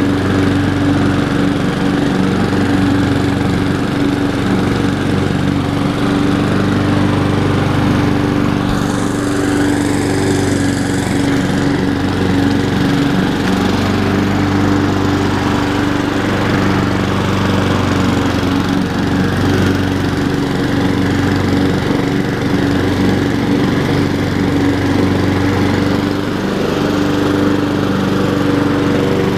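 Honda HRR216 walk-behind lawn mower's engine running steadily while mowing grass, with a brief higher hiss about nine seconds in.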